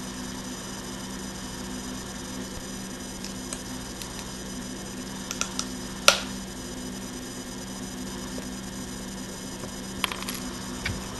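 Steady webcam-microphone hiss and mains hum, with a few light clicks and one sharp click about six seconds in, made as a fingernail is bitten; more small clicks near the end.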